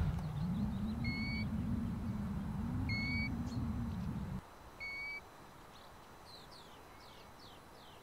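European golden plover calling: three single plaintive whistles, each about half a second long and roughly two seconds apart. A low rumble runs under the first half and cuts off suddenly, and faint high falling chirps from a small bird come near the end.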